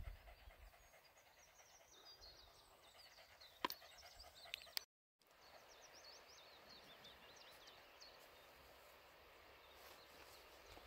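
Faint birdsong over quiet outdoor ambience: a small songbird's quick high chirping notes in two short runs. Two faint clicks come a little before the middle, and the sound drops out completely for a moment just before halfway.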